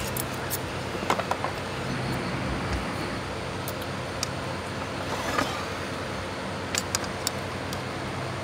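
A metal spoon clinking and scraping against a ceramic bowl of rice, a few light clicks scattered through, over a steady low machine hum like a running fan.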